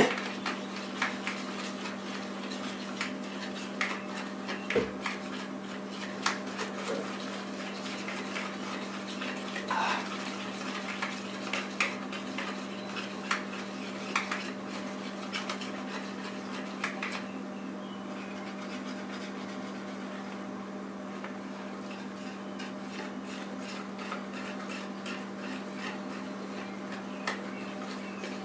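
Wire whisk clicking and scraping against a plastic mixing bowl as batter is beaten, in quick irregular taps that thin out about two-thirds of the way through. A steady low hum runs underneath.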